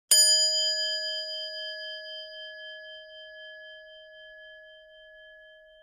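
A single bell-like chime, struck once at the start, its several clear tones ringing on and slowly fading away.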